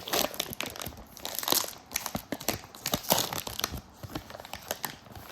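Wrapper of a Panini Chronicles basketball card pack being torn open and crinkled: a rapid run of crackles, loudest about a second and a half and again three seconds in, dying down near the end.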